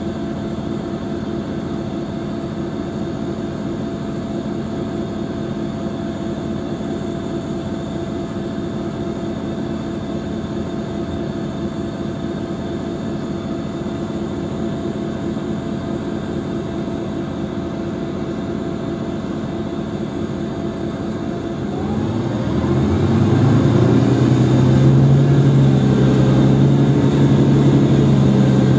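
Mercedes-Benz OM457hLA six-cylinder turbodiesel of an articulated city bus idling steadily at rest. About 22 seconds in, a whine rises in pitch and the engine gets louder and heavier, then holds at the higher level.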